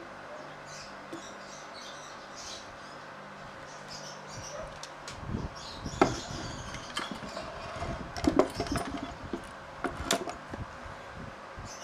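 Irregular sharp clicks and knocks as the metal parts of a Toyota 2E engine's Aisan carburetor are handled and set against a wooden table. They start about five seconds in over a steady low hum.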